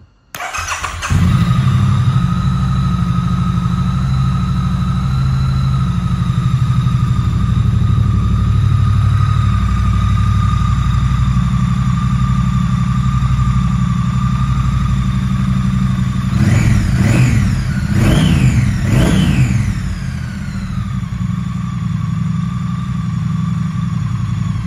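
2016 Triumph Street Twin 900's parallel-twin engine cranked on the electric starter, catching within a second and idling steadily. About two-thirds of the way through, the throttle is blipped three times in quick succession, each rev rising and falling, and then the idle settles a little lower.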